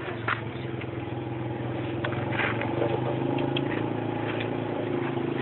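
An engine idling steadily, with a few light clicks and scrapes of hand tools being handled.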